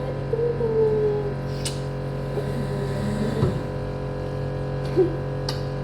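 A young child's voice humming a wavering, slightly falling note for about a second near the start, with a few shorter vocal sounds later, over a steady low hum.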